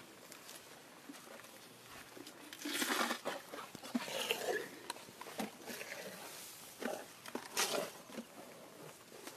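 Asian elephant moving through tall grass close by: irregular bursts of rustling and crunching, loudest about three seconds in, again about four seconds in and near the end.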